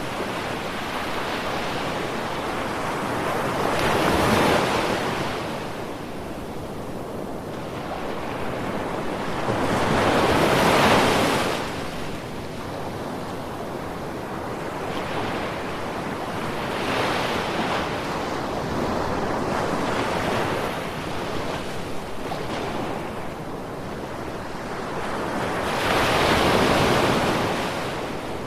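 Ocean surf: a steady wash of waves that swells into a louder breaker every six or seven seconds.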